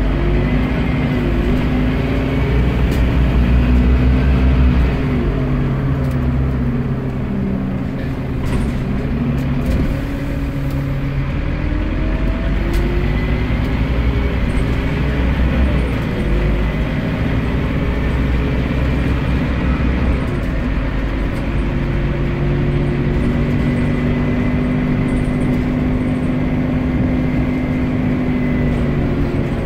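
Interior sound of a Scania CN230UB single-deck bus under way, its rear-mounted engine drone rising and falling in pitch as it pulls through its gears, with a few short clicks and rattles from the cabin. The note holds steady near the end.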